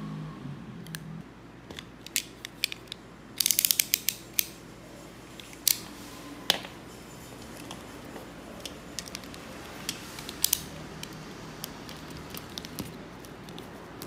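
Small hard plastic clicks and taps from handling an action figure and utility knife, including a quick run of about eight clicks a few seconds in and a few single sharper clicks later.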